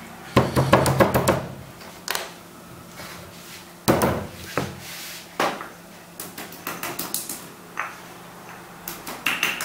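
Peppercorns being pounded with a pestle in a mortar: irregular sharp knocks and clatter, some in quick runs of several strikes, the loudest about a second in and around four seconds.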